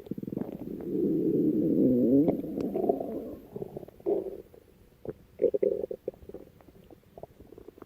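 Human stomach growling: a long gurgling rumble of about two seconds that dips and rises in pitch, followed by shorter gurgles and small popping clicks.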